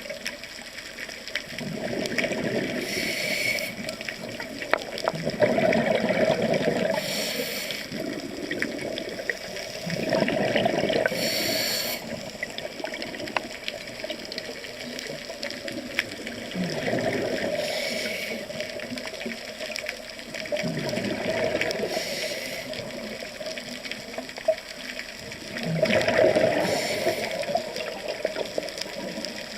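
Scuba diver breathing through a regulator underwater. A short hiss of each inhale is followed by a bubbling rush of exhaled air, the cycle repeating every four to five seconds.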